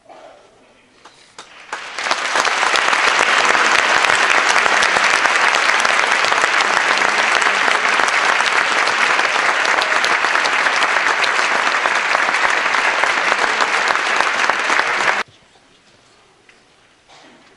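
Large concert-hall audience applauding at the end of a choir piece: a few scattered claps, then full, steady applause that stops abruptly about two seconds before the end.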